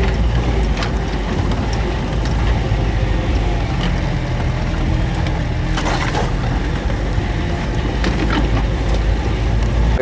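Off-road truck's engine running with a steady low drone, heard from inside the cab as it drives slowly along a rough forest track. Body rattles and a few knocks are heard, and branches scrape against the cab, most loudly about six seconds in.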